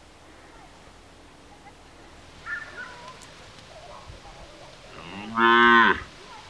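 A cow moos once near the end, a single short, low call that bends slightly down as it ends.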